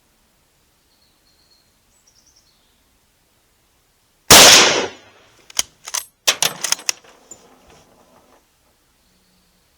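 A single shot from a Mauser K98 bolt-action rifle in 7.92×57mm. About a second after it comes a quick run of sharp metallic clicks and clacks: the bolt being worked to eject the spent case and chamber the next round.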